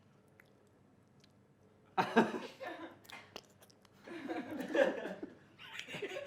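Near silence for about two seconds, then a person's voice making wordless mouth and throat sounds in short bursts.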